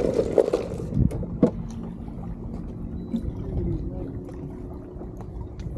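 Wind and water noise around a small fishing boat, with a short hiss in the first second and two sharp knocks soon after.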